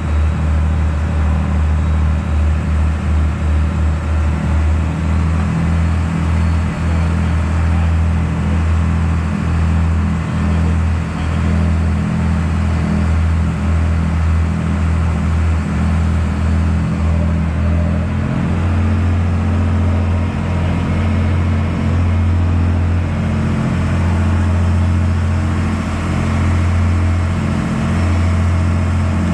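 A boat engine running steadily under way, a deep continuous drone whose tone shifts slightly about two-thirds of the way through, over the rushing of the wake churning behind the stern.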